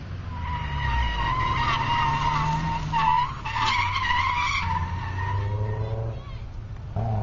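Tyres of a skid car, a sedan on an outrigger caster-wheel rig, squealing as it slides through a turn: a steady high squeal that wavers and breaks briefly about three seconds in, over the engine running. The squeal stops near two-thirds of the way through and the engine then revs up.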